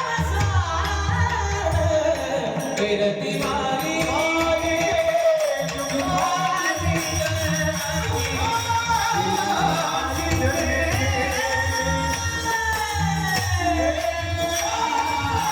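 A devotional Marathi abhang sung in a long, ornamented melodic line that glides up and down, accompanied by a mridang drum beating steadily underneath, with a jingling percussion layer.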